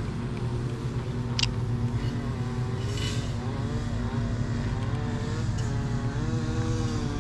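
Electric hub motors of a Segway Ninebot S Max self-balancing scooter whining as it is driven by remote control, the pitch drifting up and down with its speed over a steady low hum. A sharp click about a second and a half in.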